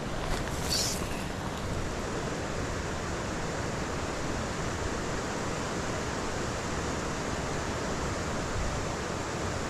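Fast mountain creek water rushing steadily, an even hiss and rumble with no let-up.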